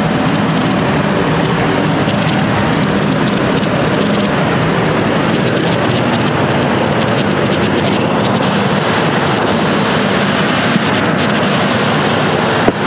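Strong storm wind with heavy rain: a loud, steady rush.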